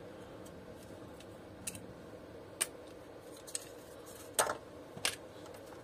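Handling noise from the plastic switch parts and housing of a vacuum cleaner being taken apart: about five scattered small clicks and taps, the loudest a little over four seconds in.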